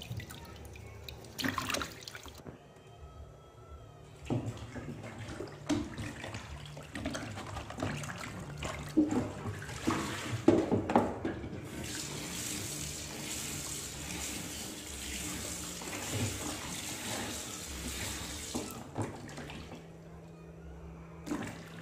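Water sloshing and splashing in a plastic basin in a steel sink as vegetables and raw pork are washed by hand, with a kitchen tap running steadily for several seconds about halfway through.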